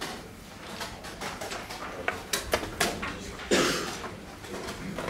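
Chess tournament hall room sound: a few sharp wooden clicks of pieces set down and clock buttons pressed, about two to three seconds in, then a short burst of noise about a second later.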